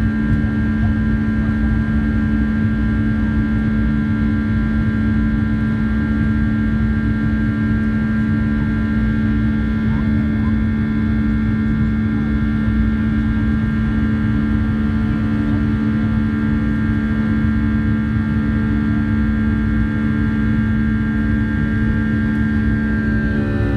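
Boeing 757-300 turbofan engines heard from inside the cabin during the climb after takeoff: a loud, steady drone with a deep hum and a higher whine over a low rumble. Near the end the higher tones start to fall in pitch.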